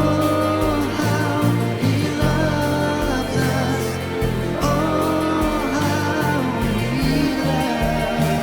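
Christian worship song: a voice singing a melody over a band with bass and a steady beat.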